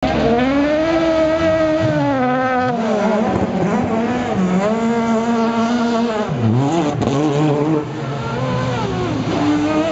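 Super GT GT500 race cars' V8 engines revving, the engine note rising and falling over and over, at times with two engines heard at once.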